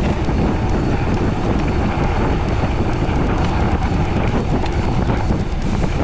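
Wind rushing over the microphone of a rider-mounted camera on a moving mountain bike: a loud, steady rumble.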